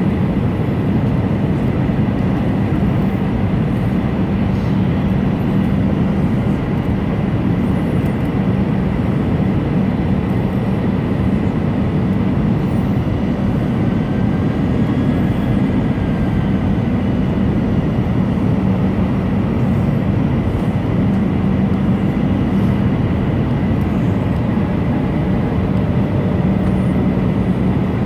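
Airbus A319 cabin noise on final approach: engines and rushing air heard from a window seat beside the engine, a steady rumble with a constant low hum and a thin high whine.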